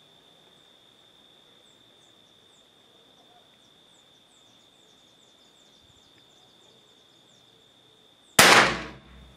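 A single .22LR shot from a CZ American bolt-action rifle: one sharp report about eight seconds in, dying away within about half a second, after several seconds of faint steady background.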